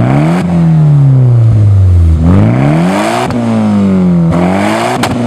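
A car engine being revved again and again, its pitch climbing and falling in long sweeps of about a second each, with a few sharp pops from the exhaust where the revs turn.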